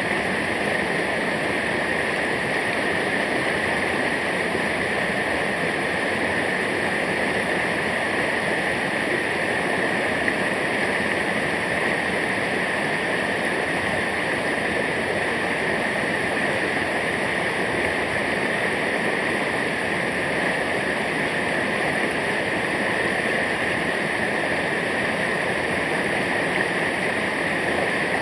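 Steady rushing water of a waterfall or mountain stream, an even unbroken noise.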